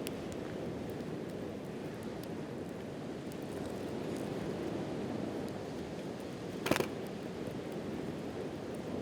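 Wood campfire crackling with faint scattered ticks and one sharp, loud pop about two-thirds of the way in, over a steady rush of surf and wind.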